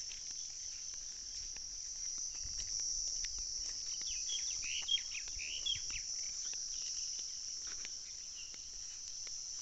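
A steady, high-pitched chorus of jungle insects calling, with a few short bird chirps around the middle.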